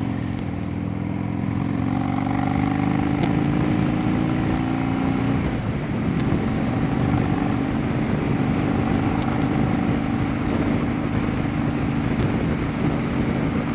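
2009 Harley-Davidson Dyna Low Rider's V-twin engine running on the road, its note rising gently for about five seconds, breaking briefly, then holding steady, with wind noise on the microphone.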